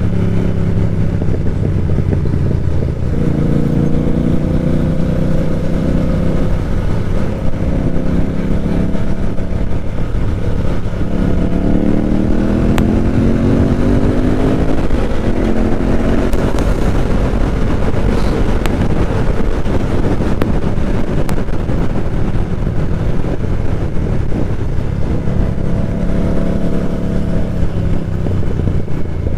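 Motorcycle engine and exhaust under way, holding speed and then revving up in pitch about eleven seconds in as it accelerates, with wind rush on the microphone.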